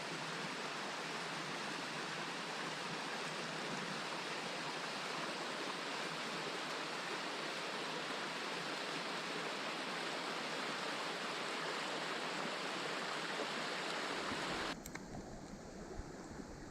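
Creek water rushing over rapids, a steady hiss of flowing water. It drops suddenly to a quieter, duller rush near the end.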